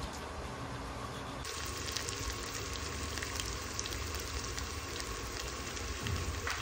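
Sliced onions frying in oil in a steel pot: a steady sizzle with fine crackles, starting suddenly about a second and a half in.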